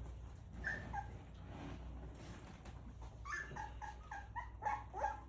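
Three-week-old Rottweiler puppies whimpering in short, high, falling cries, a couple about a second in and then a quick run of them from about three seconds in.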